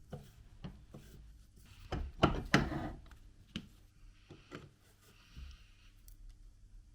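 Handwork on a workbench: scattered light clicks and knocks, a cluster of louder knocks about two seconds in, and brief stretches of soft rubbing or scraping.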